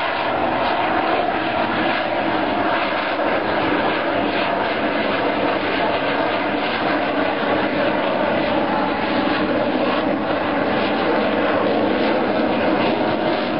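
Fighter jet in flight: a steady, even jet noise with no break.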